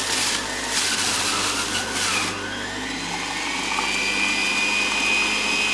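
Electric centrifugal juicer running, its motor and spinning basket shredding fruit pushed down the feed chute. A harsher grinding noise for the first two seconds or so gives way to a smoother, steady whine with a thin high tone.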